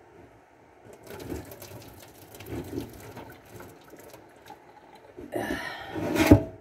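Hot water pouring from a pot of boiled potatoes into the sink past a lid held ajar, with the lid clattering against the pot's rim. Near the end comes a louder gush and a sharp clank.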